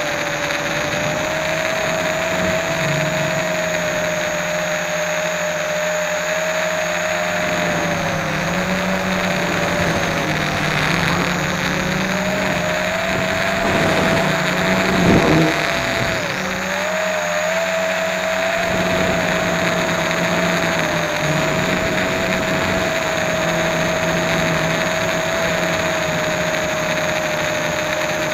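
Multirotor drone's electric motors and propellers whining steadily, heard from the camera on board, with the pitch dipping several times as the throttle changes and a brief louder surge about halfway through.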